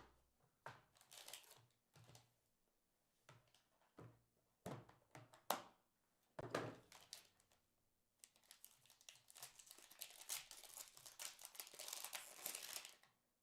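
Wrapper on a pack of trading cards being torn open and crinkled: several short, separate rustles and tears, then about five seconds of continuous crinkling near the end.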